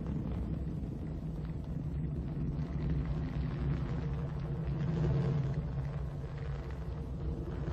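Steady low rumble of an Ariane 5 rocket's engines as it climbs after liftoff.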